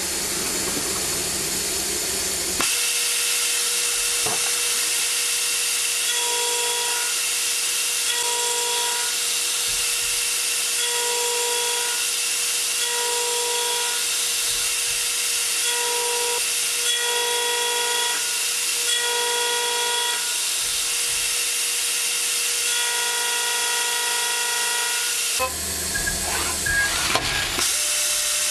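A metal-forming machine running as its rotating tools work a spinning steel disc. It makes a steady loud hiss, with a pitched whine that comes and goes every second or two. Near the end the sound shifts to a lower rumble with some crackling.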